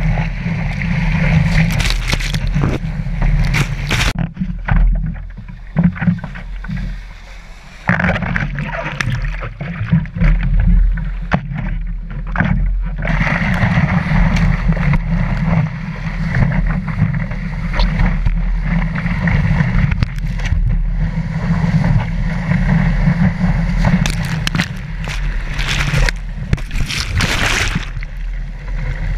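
Whitewater rushing and splashing over a surfboard, heard through a board-mounted action camera, with a heavy low rumble of water and wind buffeting the camera housing. It drops quieter about four seconds in and surges back loud about eight seconds in.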